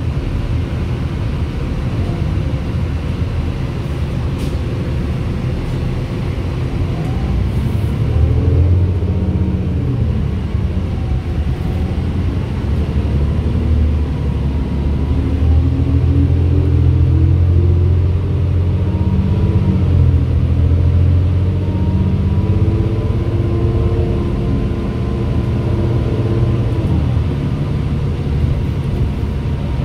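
Interior of a New Flyer D35LFR diesel transit bus under way: the engine and drivetrain run under a steady low rumble, their pitch climbing and falling again several times as the bus speeds up and eases off.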